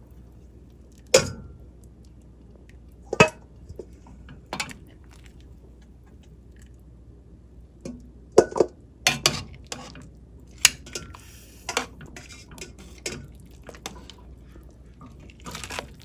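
Metal kitchen tongs clinking and knocking against the rim and sides of a stainless steel stockpot while beef is turned in the blanching water. There are about ten sharp strikes at irregular intervals, a few ringing briefly.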